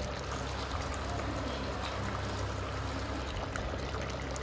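Chicken curry simmering in a steel pot, a steady bubbling hiss over a low steady hum, with a few light clicks of the steel ladle against the pot near the end.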